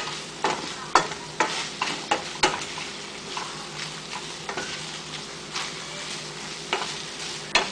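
Chicken pieces stir-frying in a sugar sauce that is thickening and turning sticky: a steady sizzle, with a utensil knocking and scraping against the pot several times in the first couple of seconds and twice more near the end.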